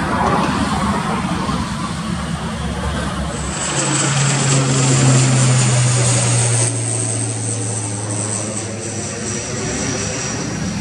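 ATR 42-500 turboprop climbing out at takeoff power: a steady propeller drone with a high turbine whine over it. It grows louder about four seconds in as the aircraft passes overhead, then eases off with the whine dropping slightly in pitch as it moves away.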